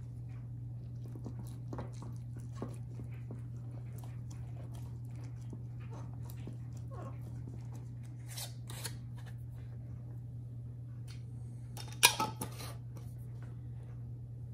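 Soft wet squelching and small clicks of gloved hands packing chili-coated kimchi cabbage into a glass jar, over a steady low hum. About twelve seconds in, a short clatter of sharp knocks as a lidded glass mason jar is handled.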